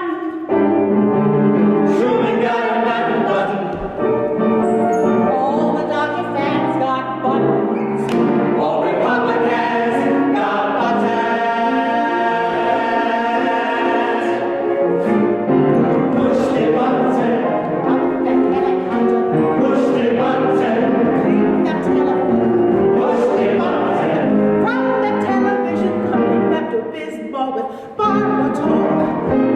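An ensemble of singers performing a show tune over instrumental accompaniment, holding a long chord partway through.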